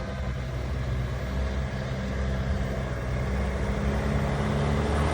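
Vehicle engine running steadily under load on an uphill off-road climb, its low hum slowly growing louder.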